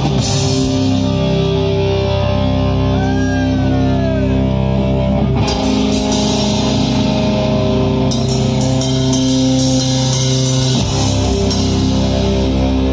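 Live metal band playing loud, distorted electric guitars holding long sustained chords. Drum cymbal hits come in about halfway through and again later.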